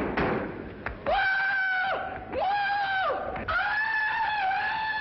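A man's Tarzan yell: a high, held falsetto call in three long phrases, each swooping up into its pitch, starting about a second in.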